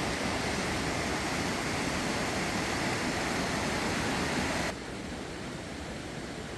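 Mountain stream rushing over rocks, a steady loud rush that drops suddenly to a softer, duller rush about three-quarters of the way through.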